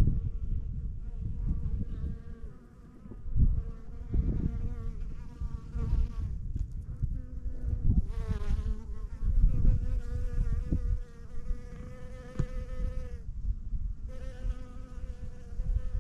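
A flying insect buzzing close by, its hum wavering in pitch as it moves and breaking off for about a second near the end before it comes back. Wind rumbles on the microphone underneath.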